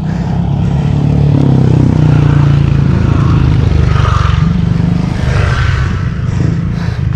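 Motorcycle engine running as it approaches and passes close by, its pitch rising briefly about a second and a half in.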